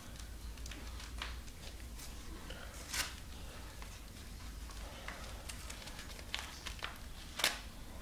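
Packaging being torn and pulled open by hand: scattered crinkling and small rips, with sharper tearing sounds about three seconds in and near the end.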